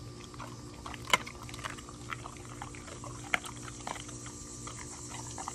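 A giant-breed dog gnawing a raw chicken leg quarter: wet chewing with irregular sharp crunches of bone, the loudest about a second in and again a little after three seconds, over a faint steady low hum.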